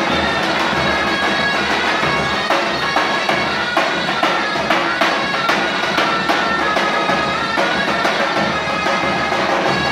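Two zurnas, Turkish double-reed shawms, playing a folk dance tune over davul drum strokes.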